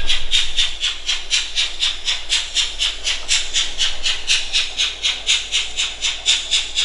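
Minitrix N-scale BR 042 model steam locomotive giving rhythmic simulated steam chuffs, about three a second, while it hauls a freight train.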